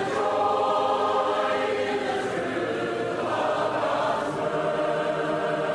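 Choir singing long held chords, with a change of chord about three seconds in.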